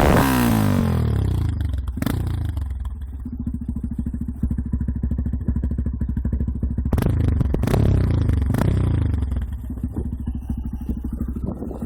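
Yamaha XTZ 250 Lander's single-cylinder four-stroke engine through a Roncar Coyote 2way aftermarket exhaust: revs falling off into a steady idle, a quick throttle blip about seven seconds in, then idling again. A few sharp cracks come with the revs.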